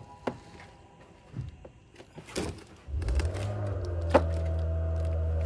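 Light plastic clicks and knocks of a push-in mudflap fastener tab being fitted into a car's wheel-arch panel. About three seconds in, a steady low hum with several held tones starts and becomes the loudest sound, with a sharp click a second later.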